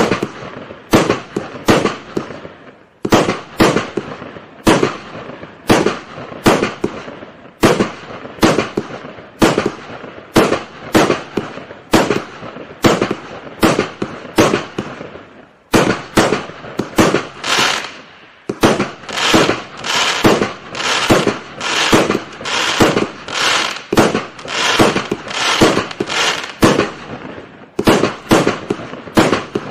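A 300-shot, 25 mm fireworks cake firing in rapid succession, with about two to three sharp reports a second. Briefly there is a short lull, and later a stretch where the bursts come denser and run together.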